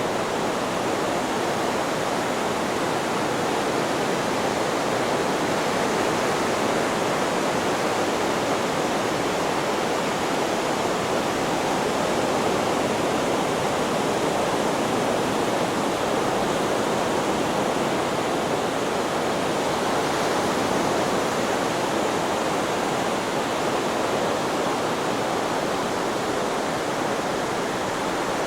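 A steady, even hiss of added white noise that neither swells nor fades the way breaking waves would.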